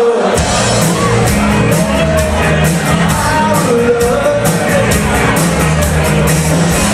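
Live rock covers band playing loud, a singer's voice over the band and a steady drumbeat.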